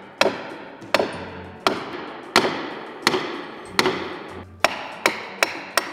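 Hammer blows on metal and wood as nails are driven into the planks of a wooden boat. About ten sharp strikes roughly three-quarters of a second apart, coming quicker near the end, each trailing off in an echo.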